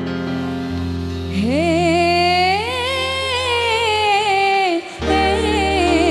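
Live dangdut band music: sustained keyboard chords, then a female voice sliding up into a long held note with heavy vibrato, which breaks off near the end and is followed by another wavering sung phrase.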